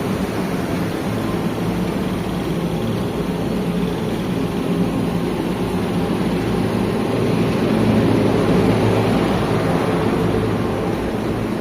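Steady low mechanical hum under a rushing noise, which grows a little louder about eight seconds in.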